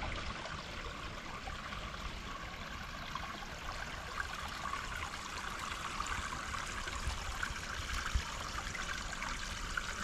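Small creek running with a steady trickling, babbling rush of water.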